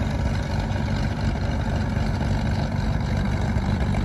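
1966 Cessna 310K's two six-cylinder piston engines running at low power as the twin taxis on the ramp, a steady low drone.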